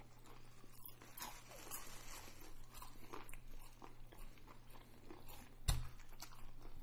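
Close-up mouth sounds of people chewing fried chicken and fries: wet smacks and small crunchy clicks. One dull thump near the end.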